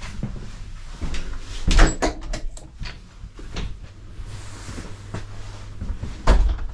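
Interior door of a commuter train carriage being opened and passed through: a loud clunk with a rattle of knocks about two seconds in, a few smaller clicks after, and another heavy thump near the end, over a steady low hum.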